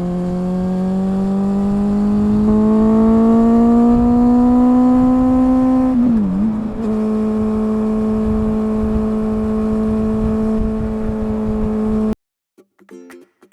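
Honda CB400 Super Four inline-four engine running through a BEAMS CORSA-EVOII aftermarket silencer. Its exhaust note rises slowly in pitch for about six seconds, dips briefly, then holds steady before cutting off suddenly near the end.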